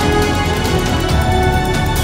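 Soundtrack music with a steady beat.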